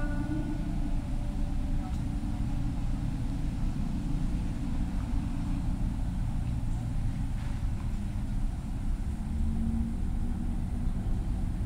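Steady low rumble of distant urban traffic. A long sung phrase of the mosque call to prayer fades out in the first second.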